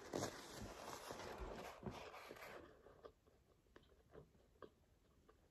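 Faint chewing of food, with scattered small soft clicks and crunches. A low hiss dies away about two and a half seconds in.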